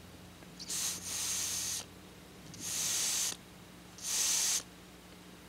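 Three breaths blown by mouth through a fuel hose into a Walbro LMT carburetor's fuel inlet, heard as three separate airy hisses of about a second or less each. This is a bench test of the newly fitted needle valve and seat, which seem to be working.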